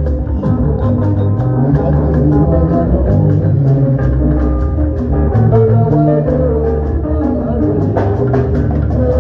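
A live band playing instrumental music with guitar, carried by a steady beat.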